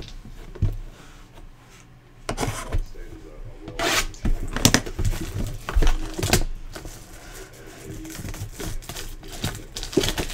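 Plastic shrink wrap being torn and crinkled off a Panini Prizm basketball card Mega Box, in several sharp crackling bursts with softer rustling between.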